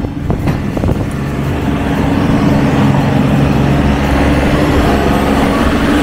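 Engine of a compact snow-clearing tractor with a front snow pusher box, running steadily close by with a low, even drone.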